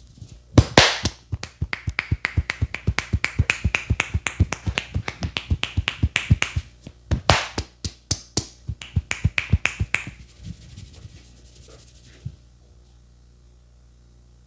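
Barber's hands striking the head in a rapid percussive massage, sharp slaps or claps at about four a second, with a short pause midway, stopping about ten seconds in.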